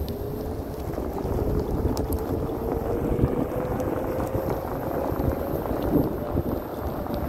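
Floatwheel ADV one-wheeled electric board riding over paving stones: the hub motor's thin whine rises slowly in pitch as it speeds up, over a steady tyre rumble, with a couple of bumps from the pavers.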